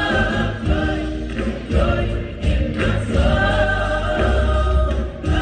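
A choir singing with instrumental accompaniment, over a strong bass line.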